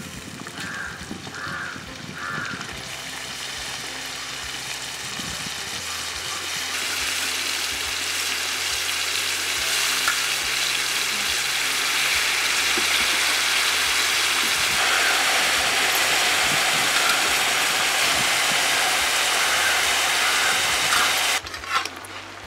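Onions and bell peppers sizzling in hot oil in a wok as cauliflower florets are added, a steady frying hiss that grows louder over the first dozen seconds and drops off sharply near the end.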